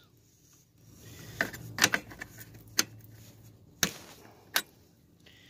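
Steel line wrench clicking and knocking against a transmission cooler line fitting on a radiator as it is worked loose: about six sharp metal clicks spread over a few seconds, the loudest nearly two seconds in.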